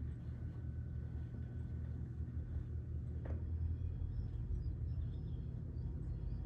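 Low, steady engine rumble, with a single sharp click about three seconds in.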